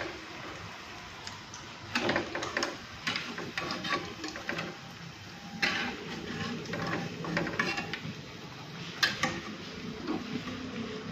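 Pakoras frying in a pan of oil, with a metal utensil scraping and clinking against the pan now and then over a steady low frying noise.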